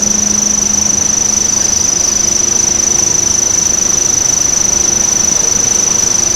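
Heavily amplified outdoor background: a steady high-pitched insect trill over loud hiss, with a faint low steady hum underneath.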